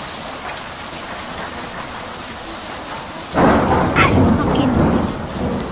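Thunderstorm: steady rain hiss, then a loud thunderclap a little past three seconds in that rumbles for about two seconds before fading.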